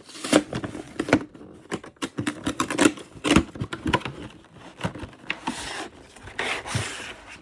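Hands opening a trading-card box set's packaging: a quick, irregular run of clicks and taps with scratching and rubbing, and two longer scraping rustles in the second half.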